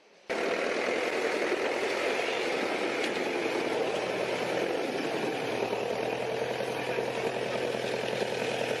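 A heavy machine's engine running steadily with a rattle, cutting in abruptly just after the start.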